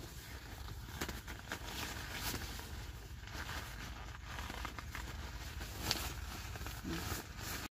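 Tent fabric rustling and crinkling as a dark fly sheet is pulled and arranged over the tent, with many small rustles over a steady low rumble.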